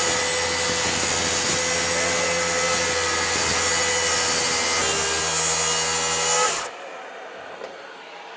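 Plunge track saw running along its guide rail, making a shallow scoring cut through a wooden cabinet face. It runs steadily, then cuts off abruptly about two-thirds of the way through, leaving a much fainter steady noise.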